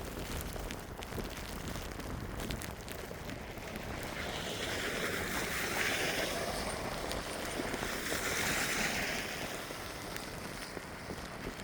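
Footsteps crunching through fresh snow over a steady outdoor rush, with a broad hissing noise that swells up twice in the middle, louder than the steps.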